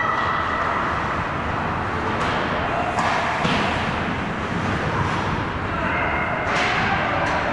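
Field ambience at a softball game: a steady rushing noise with faint distant voices, and a few sharp knocks, about three seconds in and twice near the end.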